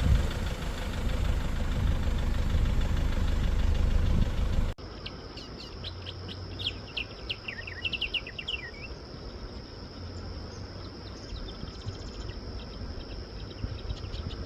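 A vehicle engine rumbling low for the first few seconds, then an abrupt cut to a steady high insect drone with quick, falling bird chirps over it, busiest in the middle.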